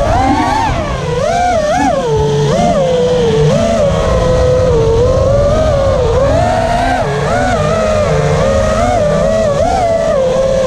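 FPV quadcopter's electric motors and propellers whining as heard from the onboard camera, the pitch swooping up and down constantly with the throttle, over a low rush of wind on the microphone.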